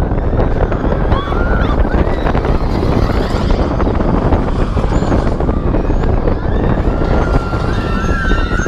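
Wind rushing over the microphone together with the steady rumble of a roller coaster mine train rolling along its track at speed. A few faint, wavering high-pitched sounds come in about a second in and again near the end.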